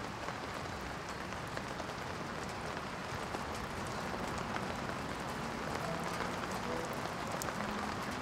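Steady hiss of falling rain, cutting in suddenly just as the sound begins, with faint ticks of drops through it.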